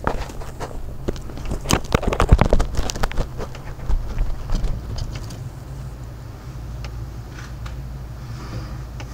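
Night thunderstorm ambience: dense crackling and clicking for the first three or four seconds, then a steady low rumble with a faint hiss.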